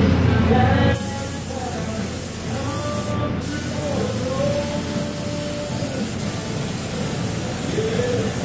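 Gravity-feed paint spray gun hissing steadily as paint is sprayed, starting about a second in with a brief pause from the trigger around three seconds in. Music plays underneath.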